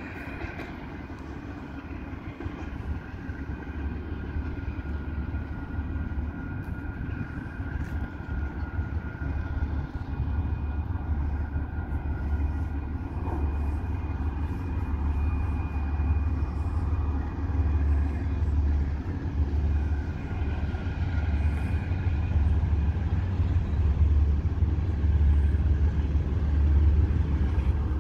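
Diesel locomotives approaching under power: a deep, steady engine drone growing gradually louder, with a faint steady whine above it.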